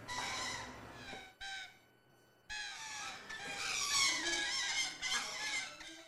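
Lorikeets squawking and chattering in a cage, a run of loud, high calls broken by a short pause about two seconds in.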